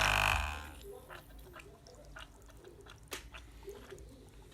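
Espresso machine's newly fitted water pump running with a loud steady hum as it draws water, then cutting off about half a second in. After that there are only faint clicks and a low wavering sound.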